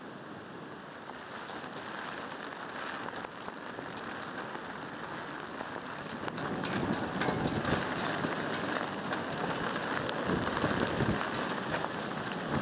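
Storm ambience on the shore: rain and wind with breaking surf, a steady rushing noise that gets louder and rougher about halfway through, with crackling hits.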